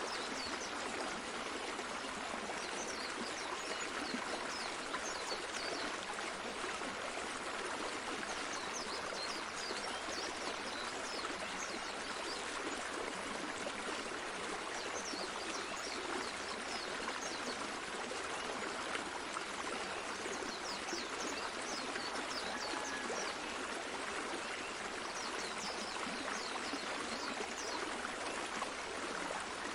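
A stream of running water flowing steadily, with many short high trickling sounds over the top.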